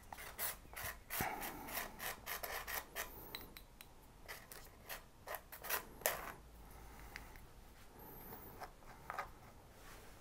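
Wooden stick scraping and spreading glue across a styrene sheet: irregular scratchy rubbing strokes, busiest in the first few seconds, then sparser, with a sharper tap about six seconds in.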